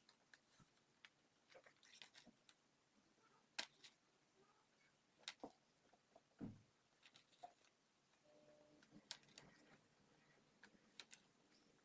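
Near silence with scattered faint clicks and taps from handling, and one low thump about six and a half seconds in.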